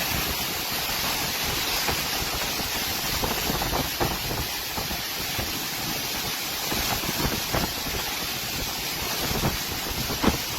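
Strong storm wind gusting steadily and buffeting the microphone, with a few short knocks or rattles near the end.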